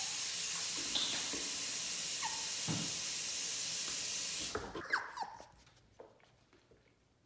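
Running water hisses steadily and stops abruptly about four and a half seconds in. A six-week-old Shih Tzu puppy gives short, high whimpers and cries over it, one falling cry right after the water stops.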